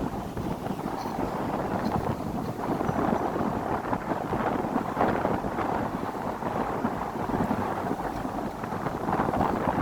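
Steady rushing of wind and water aboard a moving river tourist boat, with wind buffeting the microphone.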